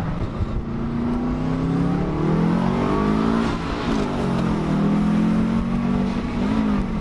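Car engine accelerating through the gears: its note climbs, drops sharply at a gear change about three and a half seconds in, then climbs again and holds.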